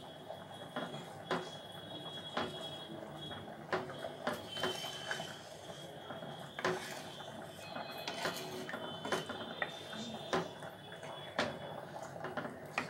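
Wooden spatula stirring chicken pieces in milk gravy in a frying pan, tapping and scraping against the pan about once a second.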